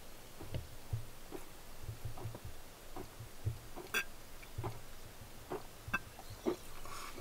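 A man gulping water from a tilted-up glass bottle: a run of soft, regular swallows, with a few small clicks about four and six seconds in.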